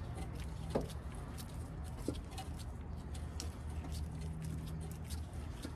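Soft scattered clicks and scrapes of studs and nuts being threaded by a gloved hand onto a new exhaust manifold catalytic converter, over a steady low hum.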